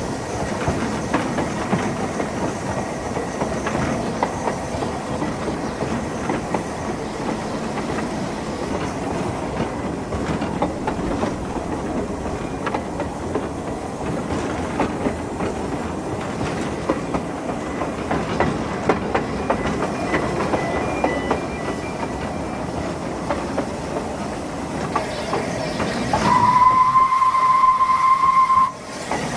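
Ffestiniog Railway steam locomotive Welsh Pony running, heard close up from its tender: a steady running noise with the clatter of the wheels. Near the end comes one whistle blast about two and a half seconds long, louder than the running and cut off sharply.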